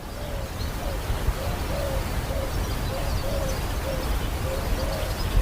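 A bird calling in a run of short hoot-like notes, about two a second, over a steady background hiss and low rumble; the sound fades in at the start.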